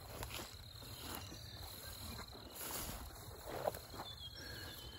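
Faint pasture ambience: a steady high insect drone, with soft rustling of footsteps through tall grass.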